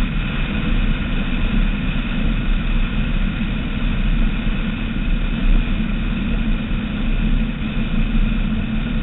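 Skater performance catamaran's engines running steadily at speed, a constant drone mixed with rushing wind and water noise, with no change in pitch or level.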